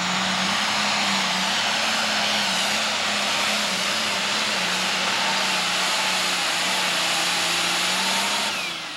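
Super stock pulling tractor's turbocharged engine running at full power under load as it drags a weight-transfer sled: loud and steady, with a steady low drone beneath. The noise drops away sharply about eight and a half seconds in.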